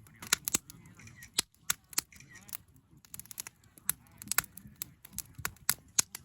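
Wood campfire crackling, with many sharp snaps and pops a few times a second over a low rumble of burning.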